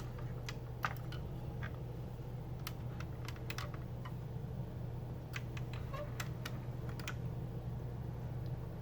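Scattered light clicks and taps from a die-cast metal 1:18 scale model car being handled and its small doors opened, over a steady low hum.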